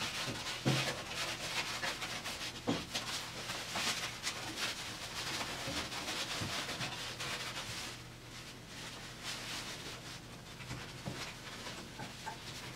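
Rubbing and rustling of shop towels wiping a 1972 Triumph GT6's bare-metal body shell down with solvent before primer, with scattered small knocks and handling noises; the wiping is busier in the first half and quieter after about eight seconds.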